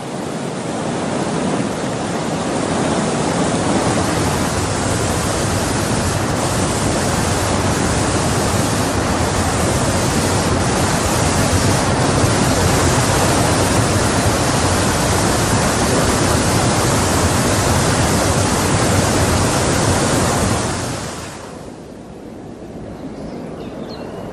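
Steady rush of a large waterfall, water pouring and crashing into mist. It fades in over the first couple of seconds and drops away about three seconds before the end, leaving a faint hiss.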